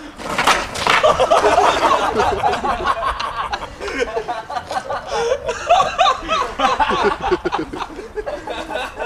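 Several people laughing, snickering and chuckling while talking over each other.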